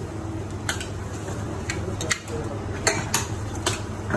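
Metal spatulas clacking and scraping on a cold stone slab as ice cream is chopped and mixed with chocolate chips and wafer rolls. About six sharp, irregular clacks over a steady low hum.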